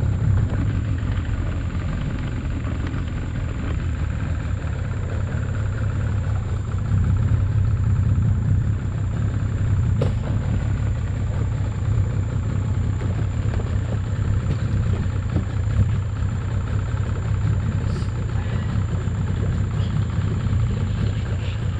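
Small wooden boat's motor running steadily with a low, even rumble.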